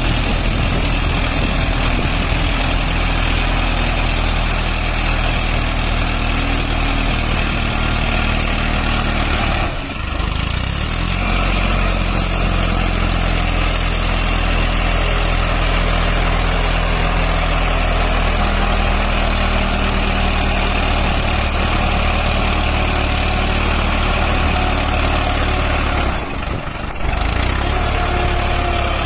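Mahindra Arjun Ultra-1 555 DI tractor's four-cylinder diesel engine running steadily as the tractor drives through deep mud. The sound dips briefly about ten seconds in and again near the end.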